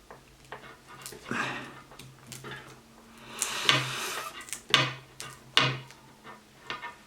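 Cutting through tape that binds a drawstring to a wire coat hanger: scattered scrapes, clicks and metallic clinks of the blade and hanger. A longer crinkly rasp comes about three and a half seconds in, and sharp clicks come near five and five and a half seconds.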